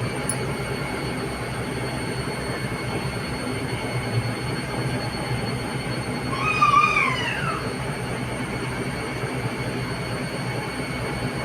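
Washing machine running with a steady hum and a constant high whine. About six and a half seconds in, a brief warbling squeal rises and falls.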